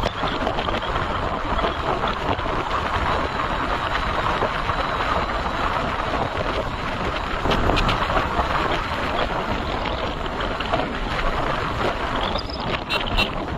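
Motorcycle running on the move with wind rushing over the microphone, a steady noise throughout. Near the end comes a quick run of short, sharp high sounds.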